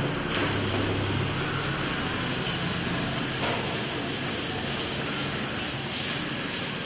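Chalkboard eraser wiping across a blackboard, a continuous scrubbing hiss, over a low steady room hum.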